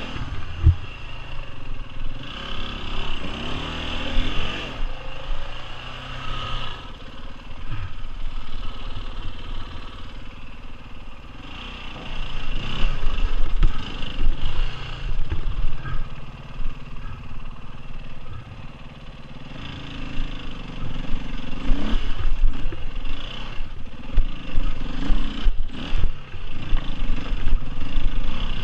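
Off-road dirt bike engine revving up and down in uneven bursts as the bike climbs a rocky trail. It gets louder for a few seconds about twelve seconds in, and again from about twenty seconds on.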